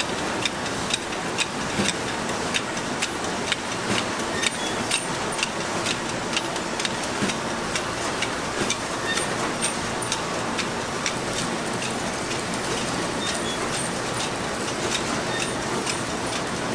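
Ice cream bar production line running steadily, its conveyor and metal chutes giving a constant mechanical hum over frequent sharp clicks and clacks, about two to three a second.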